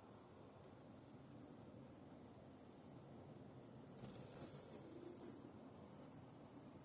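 Small songbirds chirping: short, high, single chirps every second or so, then a quick run of five louder chirps about four seconds in, and one more near the end.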